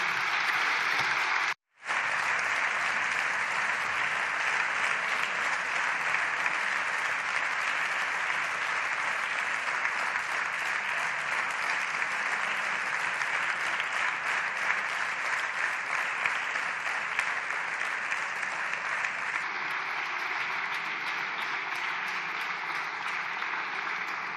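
Deputies applauding in the chamber after a speech: dense, steady clapping that tapers off slightly near the end. The sound breaks off completely for an instant about a second and a half in.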